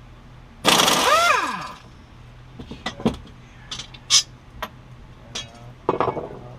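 A power tool runs in a loud burst of about a second, its pitch falling as it spins down, followed by scattered metallic clanks and clicks and a second, shorter burst near the end: loosening the bolt to take the mower blade off.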